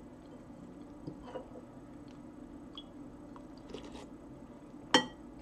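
Soft mouth sounds of eating soup, with faint small clicks. Near the end a metal spoon clinks sharply against the bowl with a brief ring.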